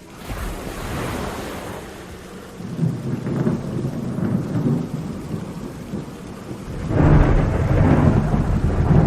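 Thunder rumbling over heavy rain in a storm, the rumble swelling several times and loudest near the end.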